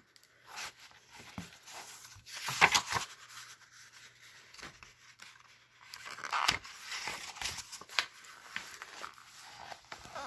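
A hardcover picture book being handled and opened: rustling and rubbing of the cover and paper pages, with louder rustles about two and a half, six and a half and eight seconds in.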